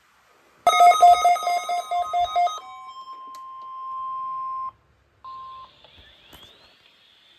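Weather radio alert signal: a quick run of electronic beeps, about four a second, then the NOAA Weather Radio 1050 Hz warning alarm tone held steady for about two seconds. The tone cuts off, sounds again briefly, and gives way to faint radio hiss.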